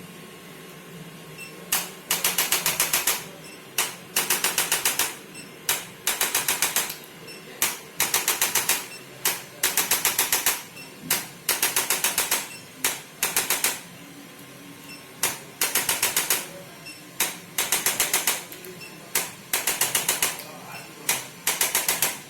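Handheld electric chiropractic adjusting instrument firing in bursts of rapid clicks, about eight a second. Each burst lasts about a second, and the bursts repeat with short pauses, beginning about two seconds in.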